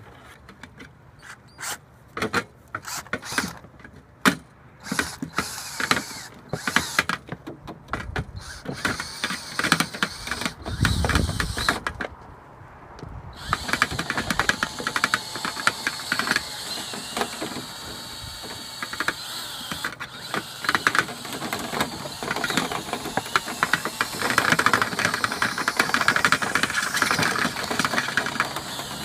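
Irregular knocks and clicks of tools handled against the dryer vent, then, about halfway through, a power drill starts turning a rotary cleaning brush in the clogged vent duct and runs on continuously, its whine wavering in pitch.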